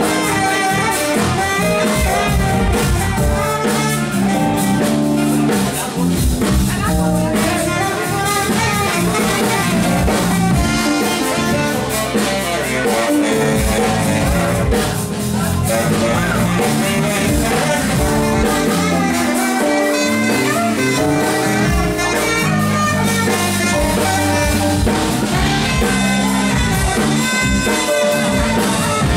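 Live funk band playing: saxophones over electric bass, guitar and drum kit, heard from the audience in a small club.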